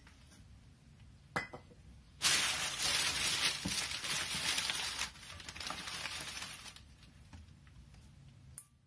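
Wrapping being pulled off an item by hand: a loud crinkling rustle lasting about four seconds, fading out over its last second or so. A light click comes before it and a sharp knock near the end, like objects being handled and set down.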